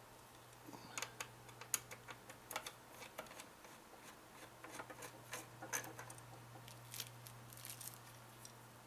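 Faint, scattered clicks and taps of small plastic and metal parts being handled with a screwdriver inside an open computer case, over a steady low hum.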